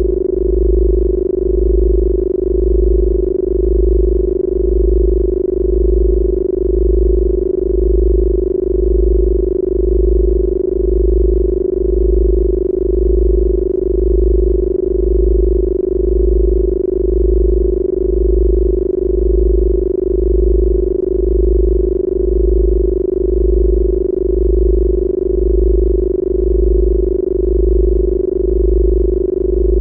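Synthesized Rife-frequency sine tones: a steady mid-pitched hum over a deep low tone that pulses about once a second.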